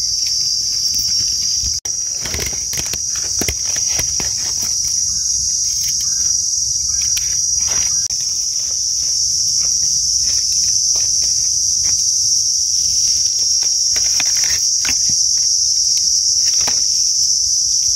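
A steady high-pitched drone of insects runs throughout. Frequent short clicks and rustles of hands and a small knife working in dry leaf litter break into it.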